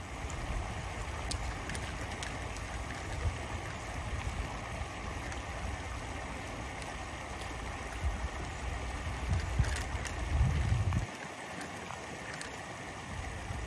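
Wind buffeting the microphone in gusts over a steady outdoor hiss; the buffeting stops sharply about eleven seconds in.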